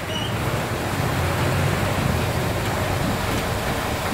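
Truck-mounted mobile crane's diesel engine running steadily under load as it lifts a backhoe loader: a low drone beneath a rushing hiss.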